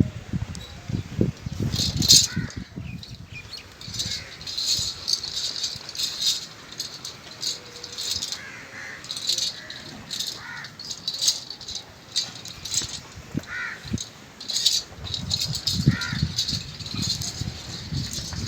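Repeated metallic jingling and rattling in short bursts, with a few crow caws in the background.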